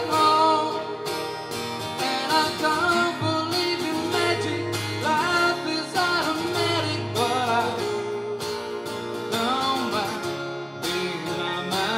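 Live guitar duo: a man sings over a strummed acoustic guitar, with an electric guitar playing along.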